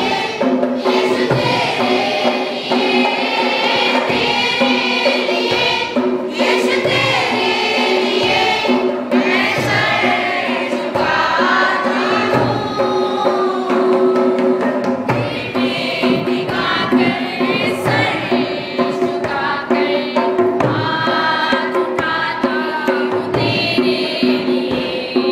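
A group of children and teenagers singing a worship song together, with sustained accompanying notes and a regular percussive beat.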